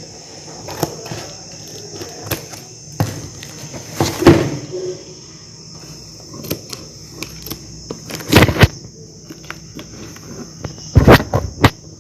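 A parcel's packaging being handled and opened: scattered crinkling, rustling and clicks, with louder bursts about four, eight and eleven seconds in, over a steady high chirring of crickets.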